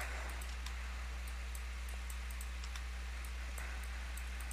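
Steady low electrical hum on the voice-chat microphone, with faint, scattered clicks of a computer mouse.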